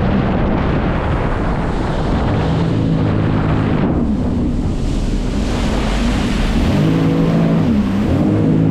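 Jet ski engine running under way, its pitch dipping and climbing back about halfway through and again near the end as the throttle changes, over rushing water and wind on the microphone.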